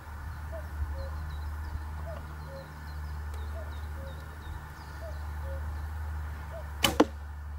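Traditional Turkish bow shot: the bowstring is released from full draw near the end with one sharp snap. Before it, a bird calls over and over in short repeated chirps, under a steady low rumble.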